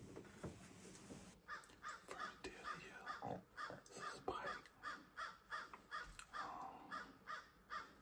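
A crow cawing over and over in a fast run of short calls, about three a second, starting about a second and a half in.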